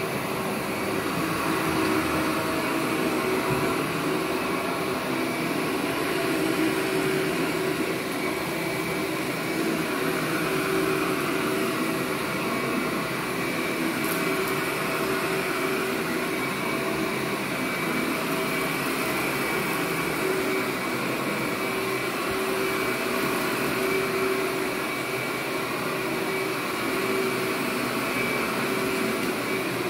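Workhorse upright vacuum cleaner running steadily while it is pushed over carpet: an even rush of suction with a constant motor hum and a higher whine over it.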